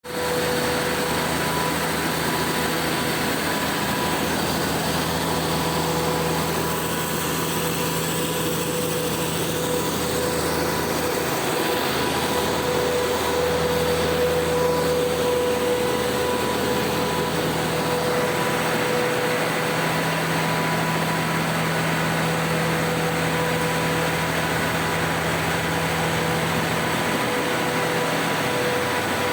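Industrial wood chipper/crusher running steadily under test: a loud, dense machine noise with a constant hum.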